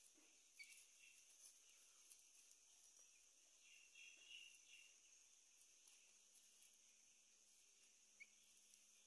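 Near silence: a faint steady hiss with a few faint, short high chirps.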